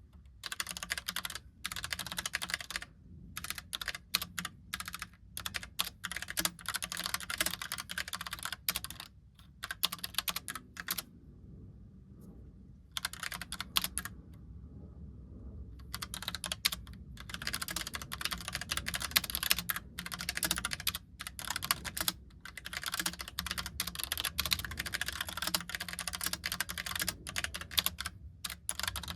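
Steady fast typing on a Logitech POP Keys mechanical keyboard with round typewriter-style keycaps, a rapid clatter of keystrokes. It breaks off for two short pauses of a second or two near the middle.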